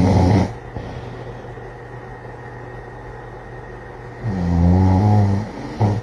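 Deep snoring: the end of one snore about half a second in, then a long, low snore a little after four seconds that lasts over a second, and a short one just before the end.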